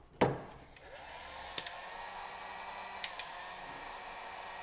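Electric heat gun switched on with a sharp click, its fan motor spinning up over about a second to a steady whine as it blows hot air to shrink heat-shrink wire connectors. Two light clicks partway through.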